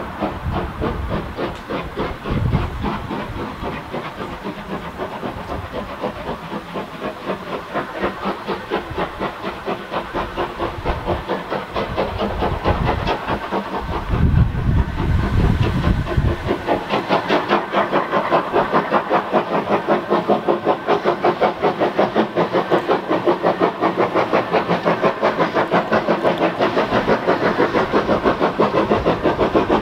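Steam train working, with hissing steam and a fast, even rhythm that grows louder and steadier about halfway through, after a short low rumble.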